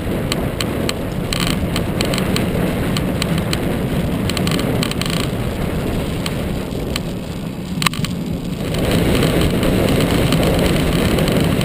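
Wind noise buffeting the microphone of a camera on a moving road bicycle, with the hiss of tyres on a wet road and scattered small ticks. The wind noise gets louder about nine seconds in.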